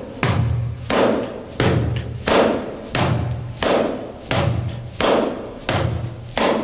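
Miked tambourine head played with the thumb in a steady, alternating kick-and-snare pattern: a low, thumpy kick-drum-like stroke, made with the thumb resting lightly at the edge of the head, alternating with a sharper snare-like crack, made with the thumb pressed hard toward the middle and a snap of the wrist, like loose snares. About ten strokes, one every two-thirds of a second.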